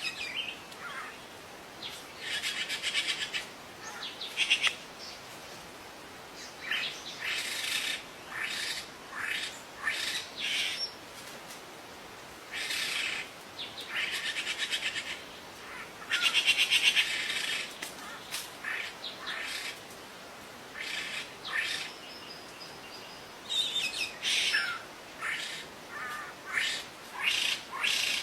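Songbird calls in irregular bursts: high, buzzy trilled phrases about a second long alternating with short sharp chirps, over a steady faint background hiss.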